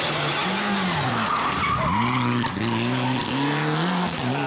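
Mitsubishi Lancer Evolution IX rally car's turbocharged four-cylinder engine: the revs fall as it brakes into a hairpin, then climb in several short steps as it accelerates out through the gears, with tyres squealing on the tarmac in the middle.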